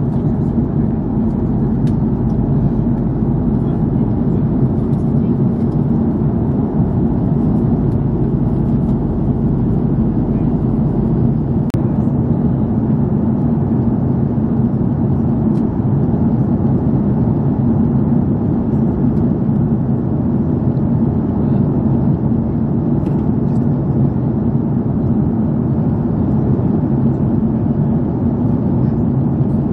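Steady cabin drone of an Airbus A330-300 airliner in flight: engine hum and rushing air heard from inside the cabin at a window seat by the wing, deep and unchanging.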